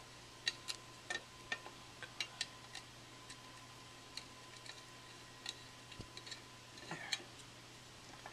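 Scattered light metallic clicks and taps from the side cover of a Singer 20U industrial sewing machine as its retaining screw is loosened by hand and the cover is worked free, with a slightly louder cluster of clicks near the end. A faint steady hum runs underneath.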